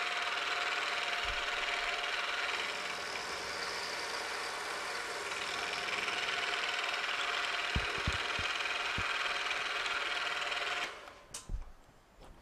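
Milling machine spindle running at about 1100 RPM while an end mill cuts a flat on a hex nut blank: a steady whine over the cutting noise, with a few light knocks. About eleven seconds in the mill is switched off and the sound cuts away, followed by a couple of knocks.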